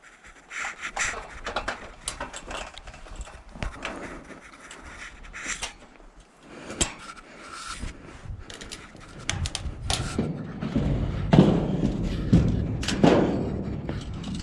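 A person moving on foot: footsteps, rustling and scraping, with scattered knocks and thuds. The last few seconds are louder and heavier, with a low rumble under the thuds.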